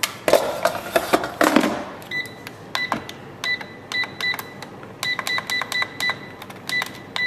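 Air fryer basket knocking and clattering as it is slid into the machine, then the air fryer's control panel beeping at each button press: a string of short high beeps, some in quick runs.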